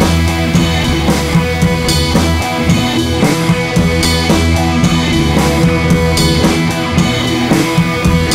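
Background rock music with drums, bass and guitar and a steady beat.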